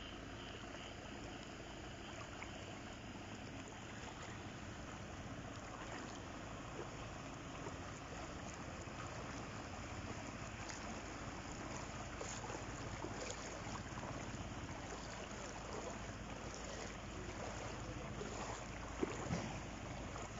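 Floodwater splashing and sloshing around legs wading through it, over a steady rushing noise, with a short sharp knock near the end.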